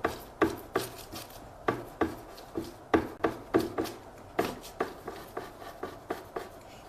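A 1-inch bristle brush tapping oil paint onto a canvas on an easel: a run of short, dull taps, about two to three a second and unevenly spaced.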